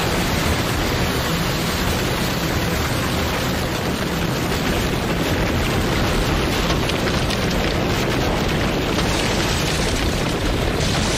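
EF4 tornado striking a house at close range: a loud, steady roar of wind and flying debris with no break.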